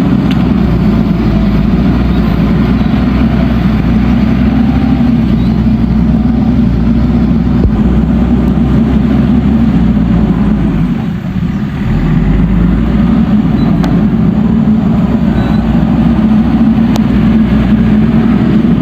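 Heavy diesel engine running steadily, dipping briefly about eleven seconds in and then picking back up.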